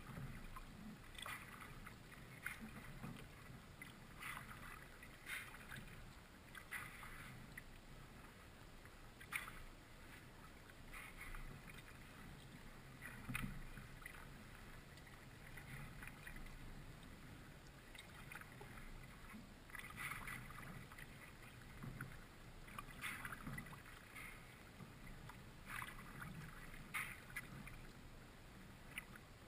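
Faint, soft splashes and drips of a kayak paddle dipping into calm creek water, one stroke after another, about every one to two seconds.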